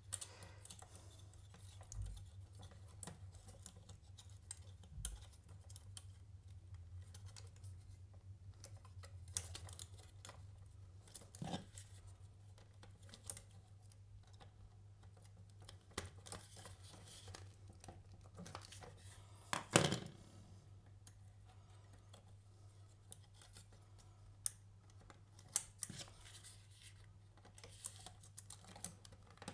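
Faint clicks and scratching of small wires being worked into the RJ45 modules of a Cat6 faceplate as the cables are terminated, with one louder click about twenty seconds in. A low steady hum runs underneath.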